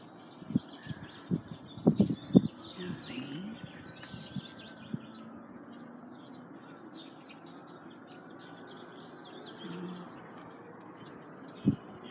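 Birds chirping and twittering in the background, with a few brief low knocks, the loudest about two seconds in.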